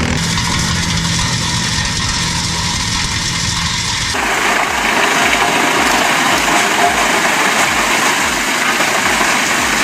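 Heavy machinery engine running steadily, with an abrupt change to a louder, different machine sound about four seconds in.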